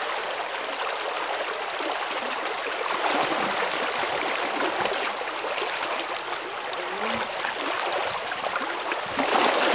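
Steady rush of a small creek's flowing water, with faint gurgles.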